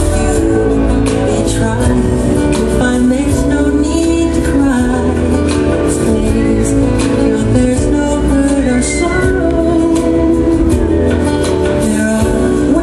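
Loud music with singing and a steady beat, played over a fairground ride's loudspeakers.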